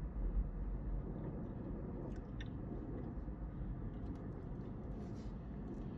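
A person chewing a bite of cookie butter pie: soft mouth sounds with a few faint clicks over a steady low hum.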